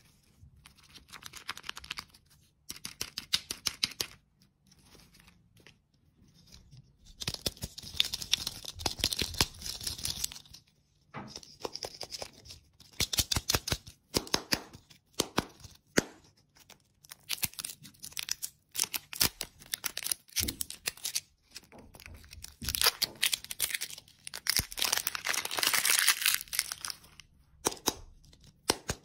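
Thin printed foil wrapper crinkling and tearing as it is peeled off a plastic egg-shaped lollipop. The rustling comes in bursts with short quiet gaps.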